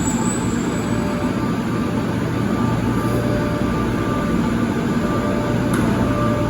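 Rio Metro 4000-series train running at the platform, a steady rumble with a few faint steady whining tones.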